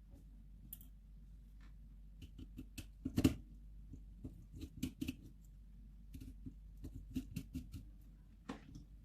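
Small, irregular clicks and taps of a precision screwdriver and small plastic and metal camera parts being handled while a compact camera's top cover is unscrewed. They come in two clusters, with the sharpest tap about three seconds in.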